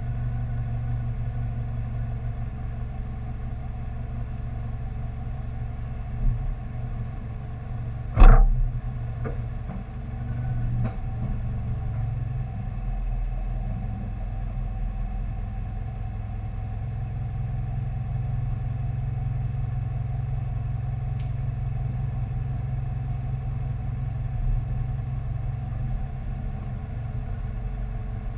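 Car engine idling steadily, a low rumble, with one sharp thump about eight seconds in and a smaller knock shortly before it.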